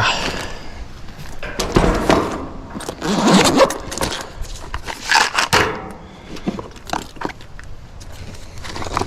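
Hand tools and metal parts being handled while opening a heat pump's outdoor unit: irregular clinks, scrapes and knocks, the loudest a scraping clatter about three seconds in, over a steady low hum.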